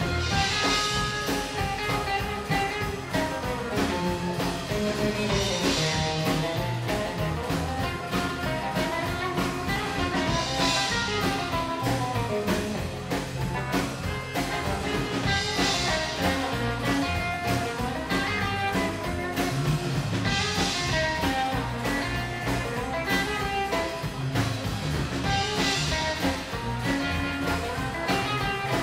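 Live rockabilly band playing an instrumental passage: acoustic guitar, upright double bass and drum kit on a steady driving beat, with a cymbal-like swell about every five seconds.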